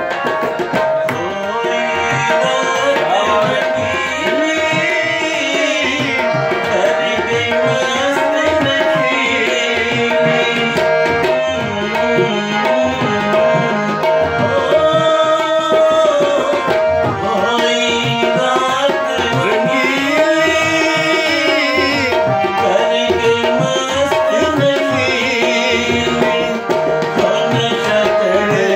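Tabla playing a steady rhythmic accompaniment under a harmonium carrying the melody, while a man sings a Punjabi/Urdu song.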